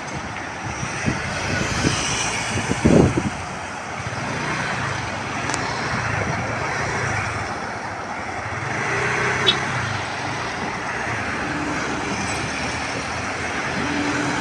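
Urban road traffic: a steady wash of passing motor vehicles with engine hum, with a few short, louder sounds in the first three seconds.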